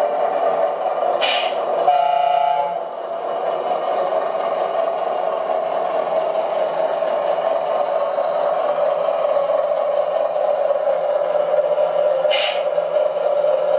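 Steady running sound of an RC scale 8x8 truck model, with a short horn blast about two seconds in and two brief hisses, one near the start and one near the end.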